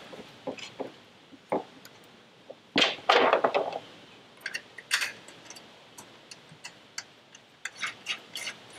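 Scattered light clicks and clinks of metal hardware handled by hand, as the switch system's relay box bracket is set onto its mounting bolts and a nut is started on a stud, with a longer scrape about three seconds in and a quick run of clicks near the end.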